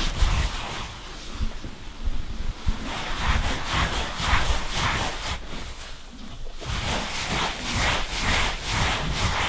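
A horse being brushed while she eats: a grooming brush rasps across the coat in repeated strokes, with short lulls, and the strokes come about two to three a second near the end.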